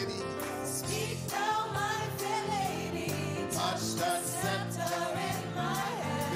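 A gospel song: a singer's voice with vibrato holding and bending long notes over instrumental backing with sustained chords and bass.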